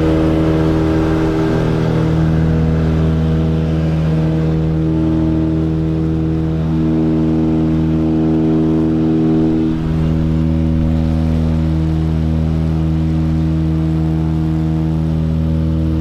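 Cabin drone of a small propeller plane's engines in flight, steady and loud, its pitch stepping slightly a few times as power is adjusted on the approach.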